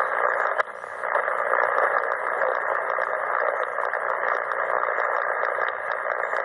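CommRadio CR-1a shortwave receiver on 7272 kHz giving out steady static hiss between voice transmissions on the net. The hiss is thin and narrowed like a voice channel, and dips briefly about half a second in.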